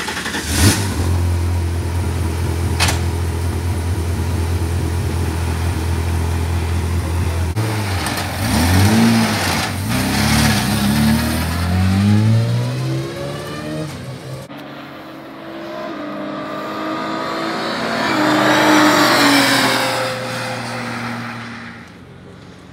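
Two-seat sports-prototype race car's engine idling with a steady low note, then blipped several times about eight seconds in. It pulls away, the engine rising loudly as it accelerates and then fading near the end.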